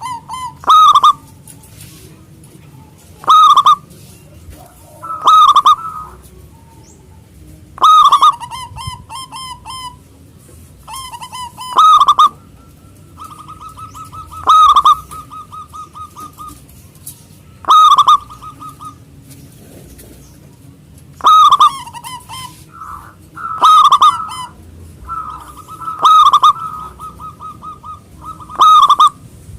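Zebra dove (perkutut) singing: loud, ringing cooing phrases repeated about every two to three seconds, with rapid stuttering runs of softer notes between some of them.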